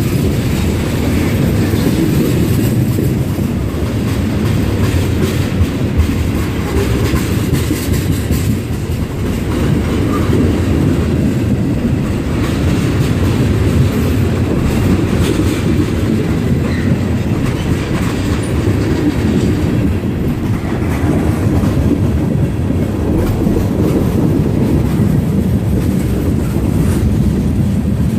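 Railroad cars of a train rolling past: a steady, loud rumble with the clickety-clack of wheels over the rail joints.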